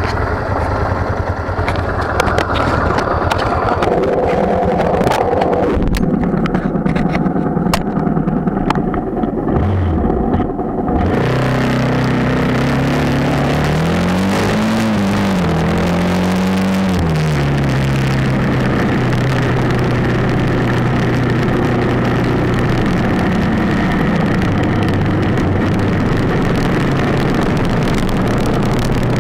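Motorcycle engine ticking over at a standstill with a few sharp clicks. About a third of the way in it pulls away, its pitch rising and falling through the gears. It then cruises at a steady pitch on a dirt road, with wind rushing over the handlebar-mounted camera.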